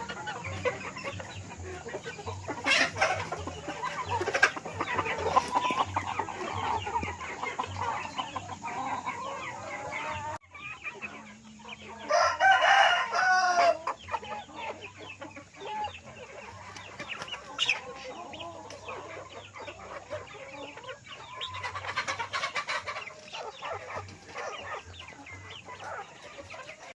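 Chickens clucking, with a rooster crowing once, loud and just under two seconds long, about twelve seconds in.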